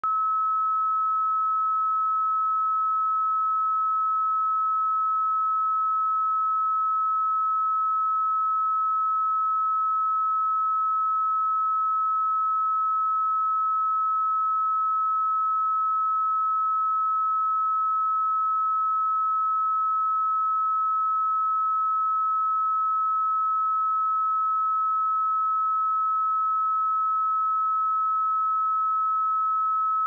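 A pure 1293 Hz sine-wave test tone, held steady at one pitch and level without a break.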